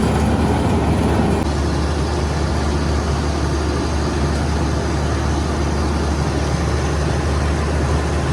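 Heavy road-construction machine's diesel engine running steadily, with a strong low hum. The sound shifts abruptly about a second and a half in.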